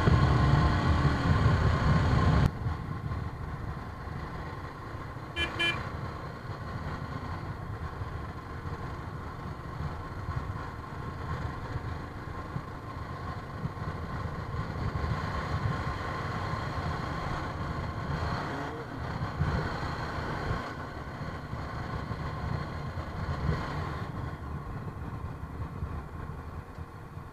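Motorcycle on the move: the engine runs under a low wind rumble, loud for the first two seconds or so, then dropping suddenly to a quieter steady rumble. A vehicle horn gives one short toot about five and a half seconds in.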